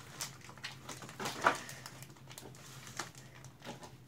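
Foil trading-card pack wrapper crinkling and rustling in the hands as it is torn open, in a run of small irregular crackles with one louder crinkle about a second and a half in, over a low steady hum.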